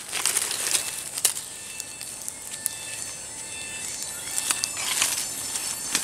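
Scattered crackles of dry leaves and twigs being handled on the forest floor. Behind them are a steady high hiss of forest background and a few faint, short bird chirps.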